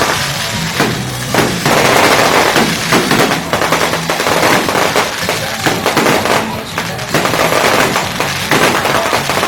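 Traditional noisy fireworks going off in a rapid, irregular string of bangs and crackles, over background music.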